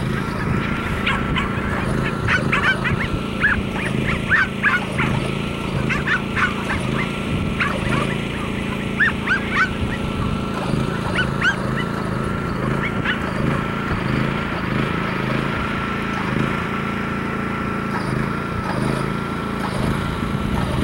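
Dogs barking in quick repeated runs through roughly the first dozen seconds, then falling silent. Under the barks runs a steady motor hum with a thin high whine that wobbles now and then, typical of a lure-coursing machine pulling the lure line.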